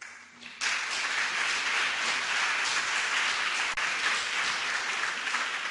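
An audience applauding, starting suddenly about half a second in and holding steady.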